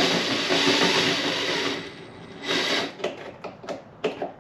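Power drill bit grinding on a pop rivet in a car bumper: one long run of about two seconds, then a shorter burst and a few quick trigger blips. The rivet is spinning with the bit instead of being drilled out.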